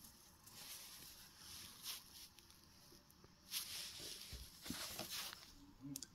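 Paper postcards being handled on a linen cloth: faint rustling and sliding of card in several short bursts, the loudest about three and a half seconds in.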